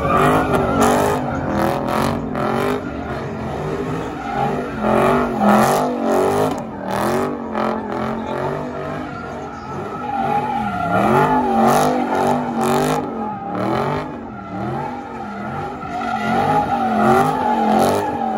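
Dodge Charger SRT spinning donuts: its rear tyres squeal continuously with a warbling, wavering pitch over the V8 engine held at high revs.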